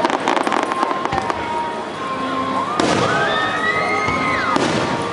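Aerial fireworks shells going off overhead: a quick run of sharp cracks and pops in the first second or so, then a bigger burst about three seconds in.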